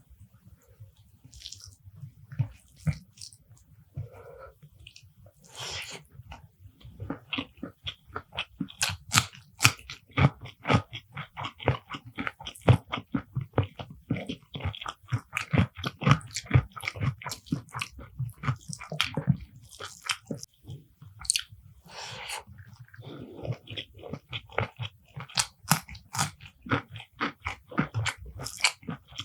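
Close-miked sounds of a person eating: crisp crunching bites and chewing, sparse for the first few seconds, then rapid and continuous.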